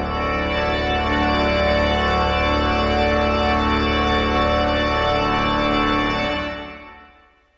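Church organ playing sustained chords over a held low pedal note, then fading away to silence about six and a half seconds in.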